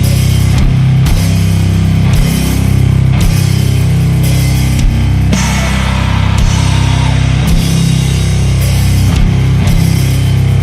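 Sludge metal: slow, heavy distorted band music with thick low-end guitar and bass and spaced, slow drum hits.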